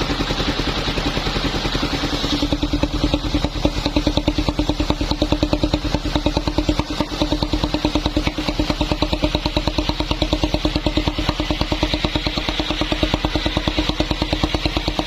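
Engine of a wood-sawing machine running steadily with a fast, even beat; a higher hiss fades about two seconds in.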